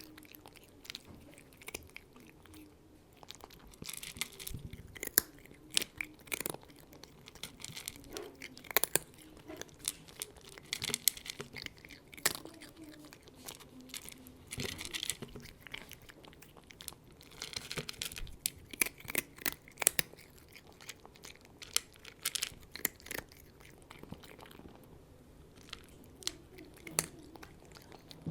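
A cat eating, chewing its food with an irregular run of small sharp clicks and crunches, broken every few seconds by short hissy bursts.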